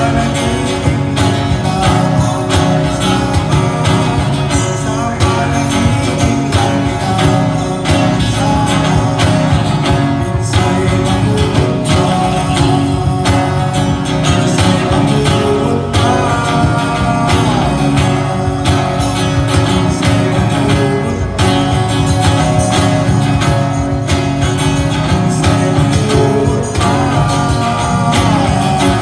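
Live band music led by acoustic guitar, playing steadily without a break.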